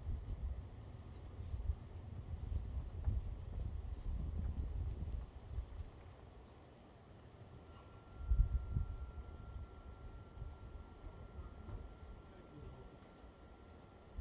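Crickets trilling steadily, with low rumbles of distant thunder through the first five seconds and again about eight seconds in. A fainter, lower steady trill joins about halfway through.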